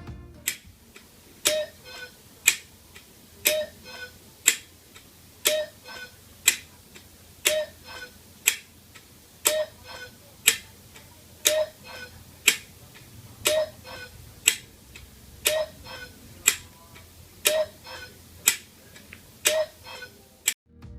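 Steady tick-tock ticking, about two sharp ticks a second, every other one louder and with a short ringing tone.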